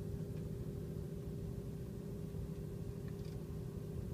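BMW M3's 4.0-litre V8, fitted with a BMW Competition race exhaust, idling steadily at standstill, heard from inside the cabin as a low, even hum.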